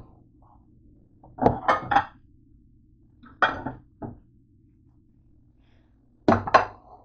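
Kitchen clatter: dishes and utensils clinking and knocked down in a few short bursts, over a steady low hum.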